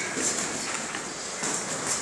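Scattered soft thuds of boxing gloves landing and feet shuffling on a rubber gym mat during sparring.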